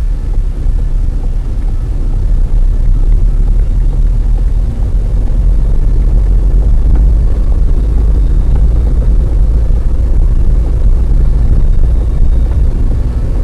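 Steady low rumble of a car driving at highway speed, about 95–98 km/h, through a blizzard: engine, tyre and wind noise with no distinct events.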